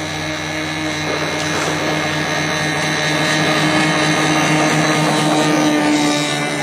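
RC airboat's motor and air propeller running at a steady speed, a constant buzzing whine that grows a little louder as the boat comes nearer, then eases off near the end.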